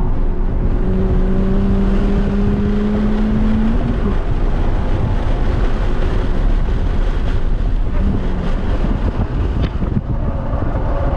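Engine and exhaust of a 2006 VW GTI MK5 (turbocharged 2.0-litre four-cylinder on a Stage 2 tune, catless downpipe and Magnaflow cat-back) heard from inside the cabin under hard acceleration. The pitch rises until a gear change about four seconds in. The car then slows for a corner near the end, with heavy wind and road noise throughout.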